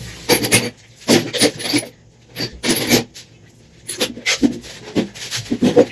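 Hand tools and metal parts being handled as an automatic transmission is taken apart: a run of irregular short scrapes and clinks, some with a brief ring.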